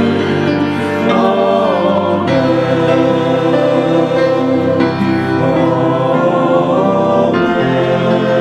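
Church music: voices singing a slow choral hymn over instrumental accompaniment, with long held notes and a gently moving melody.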